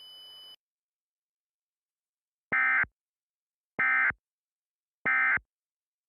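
Three short, identical bursts of EAS SAME digital data tones, evenly spaced about a second and a bit apart: the end-of-message (EOM) signal that closes an Emergency Alert System alert. A faint steady tone cuts off about half a second in.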